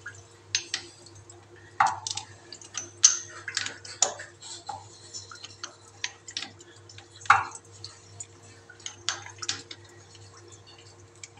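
Irregular light clicks and knocks, a few louder, from hands working on a ceramic western toilet and its fittings, over a faint steady hum.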